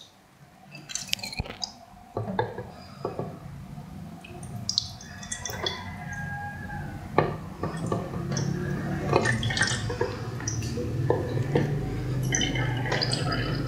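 Small aquarium filter pump running with a low hum while water splashes and drips from its outlet, with many scattered clicks. The hum comes in about two seconds in and grows louder.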